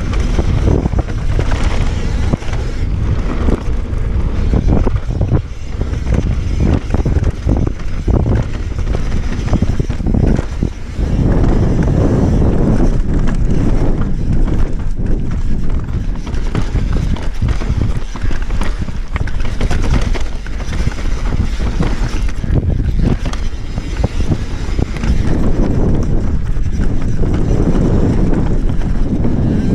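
Mountain bike descending a dry, rocky dirt trail: tyres rolling over loose dirt and stones, with frequent knocks and rattles from the bike over bumps, and wind rushing on the microphone.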